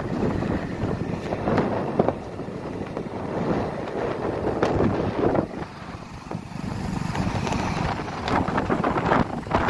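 Wind buffeting the microphone of a moving motorcycle, with the engine and road noise underneath.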